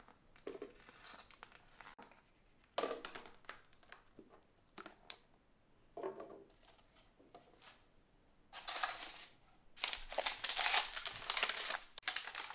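Plastic wrapping crinkling in short bursts as it is peeled off the lid of a glass food container, then louder, longer crinkling of brown packing paper being pulled off a drinking glass over the last few seconds.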